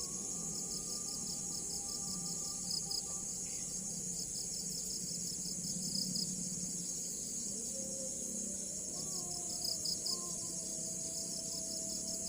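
Insects trilling: a steady high buzz with a fast, even pulsing chirp throughout. Faint thin tones drift slowly in pitch lower down.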